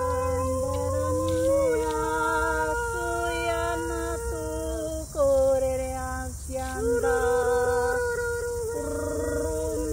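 Two women's voices toning: long wordless held notes, often two at once, stepping from pitch to pitch, with a louder note entering about five seconds in that slides down slightly before settling.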